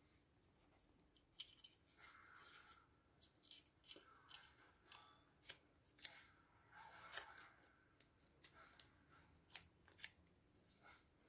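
Faint, scattered snips of scissors cutting small strips of painter's tape, with short spells of rustling as the tape is handled between cuts.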